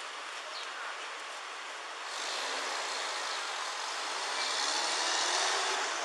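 Street traffic noise: a passing vehicle's tyre and engine noise swells about two seconds in and fades near the end.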